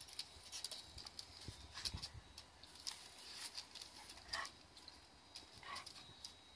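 An English Setter's claws tapping and scrabbling on stone paving as it lunges and snaps at a hand brush: faint, scattered clicks, with two short rustles in the second half.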